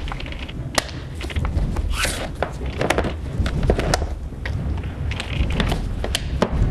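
Large metal food cans being handled and opened: a scattered series of sharp clicks and knocks, with a short rasp about two seconds in, over a low steady rumble.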